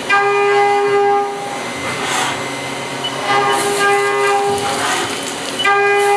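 End mill of a five-axis CNC machining centre roughing a metal workpiece under flood coolant. It gives a steady pitched cutting tone three times, about a second each, as the tool engages on each pass, with coolant spray hissing in between.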